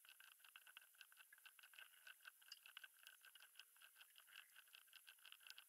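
Very faint, rapid clicking, several clicks a second, over a thin steady hiss: jumper wires being pressed into solderless breadboards.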